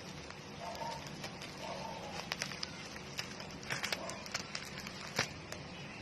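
Plastic packaging handled and opened by hand: irregular sharp crinkles and clicks, loudest about five seconds in, over a steady low hum.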